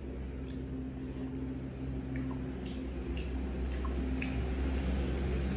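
A man chewing a bite of chicken curry, with small wet mouth clicks and smacks scattered through it. A steady low hum runs underneath.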